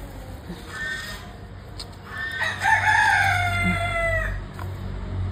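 A rooster crows once, a long call starting a little over two seconds in that slowly falls in pitch, with a few short calls before it.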